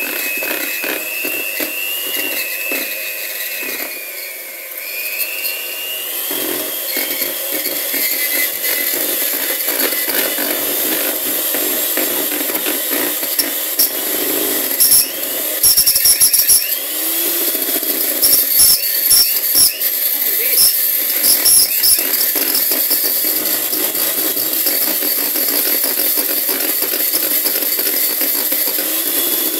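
Electric hand mixer running steadily, beating cake batter, its motor pitch dipping and rising in the first few seconds. About halfway through there is a run of sharp knocks as the beaters hit the bowl.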